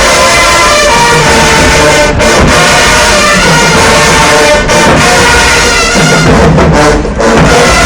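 Marching band brass section playing loudly, with held chords of trumpets and trombones.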